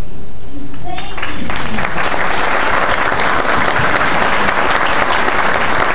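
Audience applauding: the clapping starts about a second and a half in and carries on steadily.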